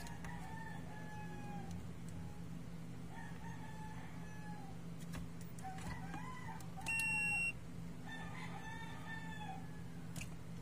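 A rooster crows about four times in the background, each crow a drawn-out call that falls away at the end. About seven seconds in, a multimeter's continuity buzzer gives one short steady beep, the loudest sound, signalling a low-resistance path between the probe tips during a check for shorted parts on the radio's circuit board.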